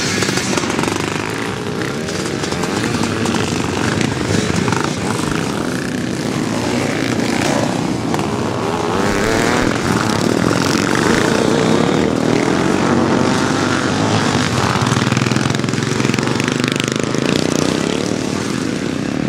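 Classic motocross bikes racing, several engines overlapping and rising and falling in pitch as the riders rev through the track.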